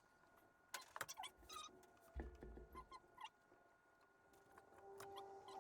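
Near silence, with faint scattered clicks and clinks of hand tools on metal while the A/C compressor bracket bolts are being fitted, and a faint steady hum coming in near the end.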